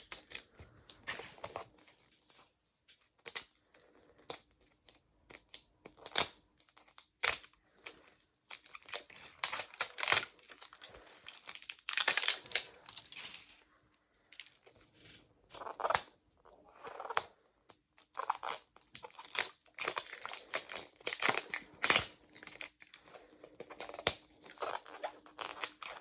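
Wrapping on a Mini Brands toy capsule being torn open and crinkled by hand: irregular bursts of rustling and tearing, with a few short pauses.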